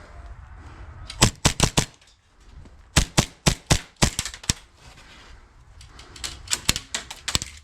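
HPA-powered airsoft pistols firing in three quick strings of sharp cracks, several shots a second.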